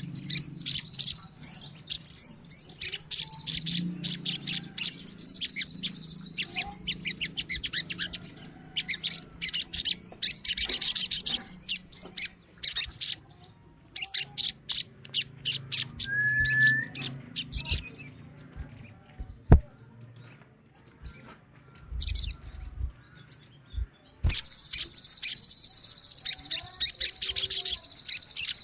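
A group of crimson sunbirds (sogon) chirping in dense, rapid high trills. The calls thin to scattered chirps in the middle and pick up densely again near the end.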